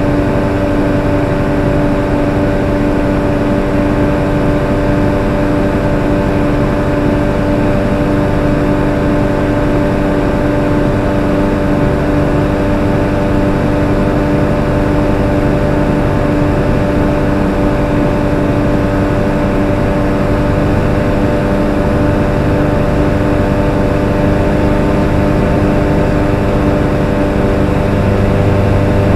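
ARV Super 2 light aircraft's engine and propeller running steadily in flight, heard from inside the cockpit as a loud, even drone. A low hum strengthens slightly near the end.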